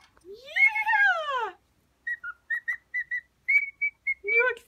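Cockatiel whistling its serenade song. It opens with a long swooping note that rises and then falls, followed by a run of short, clear whistled notes at one steady pitch.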